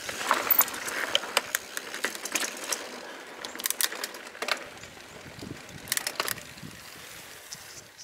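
Santa Cruz 5010 mountain bike rolling along a dirt singletrack: tyres crunching over the ground with scattered sharp clicks and rattles from the bike, slowly getting quieter.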